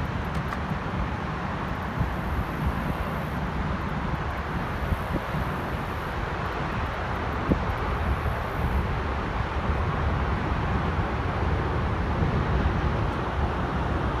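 Steady outdoor background noise: a low, unsteady rumble with a hiss over it, with no clear single source standing out.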